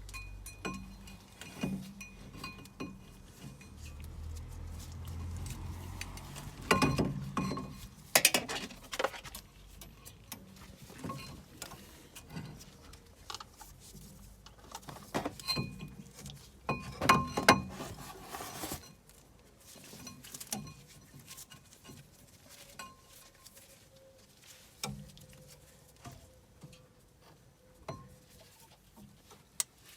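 Metal tools and parts clinking and knocking in irregular bursts, with a few louder clusters of clanking about a quarter and halfway through.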